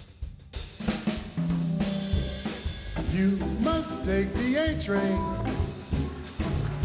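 Live swing jazz combo: a few drum-kit hits, then about a second in the full band comes in with drums, bass, guitar and saxophone.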